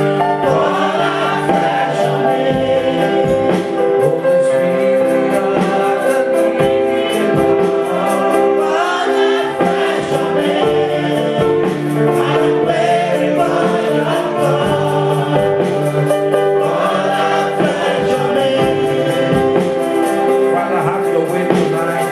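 A church congregation singing a slow gospel worship chorus with sustained instrumental accompaniment.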